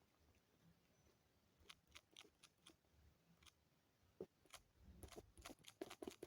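Faint, short clicks of fingers touching an itel A16 Android phone, scattered at first and then coming in a quicker run near the end.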